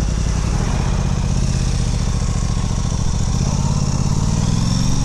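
Aprilia Tuono 660's parallel-twin engine running as the bike rides off at low speed, its pitch climbing through the second half as it accelerates, over a steady rush of wind and road noise.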